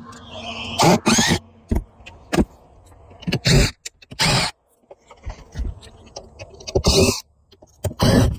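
A cordless driver backing screws out of a boat's aluminium windshield frame, running in short irregular bursts of about half a second, with metal scraping and clinking between them.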